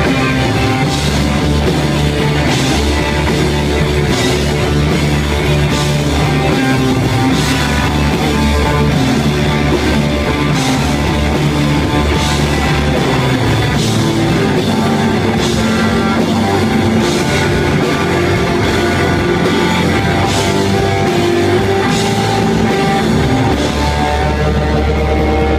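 Live rock band playing loudly and steadily: electric guitar, bass guitar, keyboard and drum kit, with long held low notes and a drum or cymbal hit about every second and a half.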